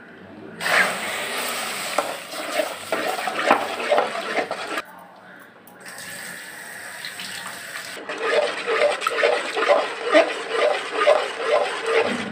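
Milk poured into a metal pot of roasted semolina and gram flour, splashing into the mixture. Then a slotted ladle stirs and sloshes through the wet batter at about two strokes a second.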